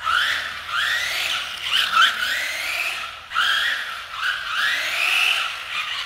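Brushed electric motor of a small 1/16-scale RC car whining up in short bursts as the throttle is applied again and again: a string of rising whines, one every second or less, over a hiss of tyres and gears.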